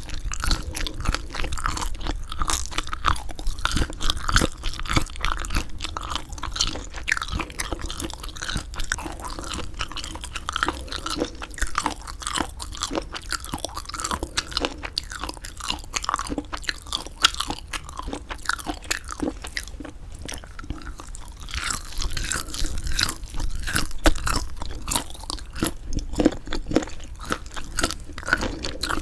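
Close-miked chewing of semi-dried squid: a dense stream of small clicks and smacks, busier and louder in the last several seconds.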